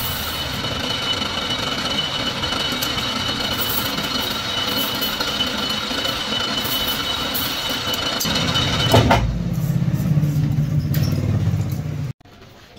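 Metal lathe cutting a high-strength steel gear blank: steady cutting noise with a constant high whine as chips peel off. About nine seconds in the cut ends with a knock, and the lathe runs on with a lower hum until the sound cuts off abruptly near the end.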